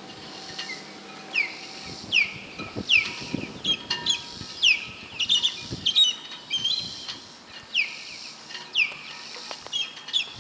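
A bird calling a quick, irregular series of short, high whistled chirps, each sliding downward, about two a second, with a few differently shaped chirps from other birds mixed in. Light wind rumbles now and then underneath.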